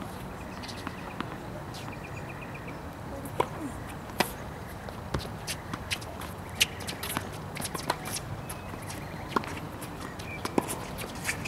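Tennis balls struck by rackets and bouncing on a hard court during a doubles rally: a series of sharp pops about a second apart, the loudest a little past halfway.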